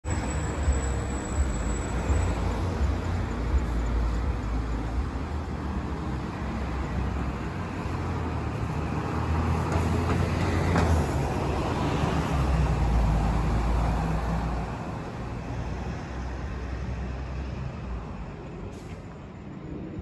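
Road traffic with a low engine rumble from passing vehicles, including a bus. It swells around the middle and eases off over the last few seconds.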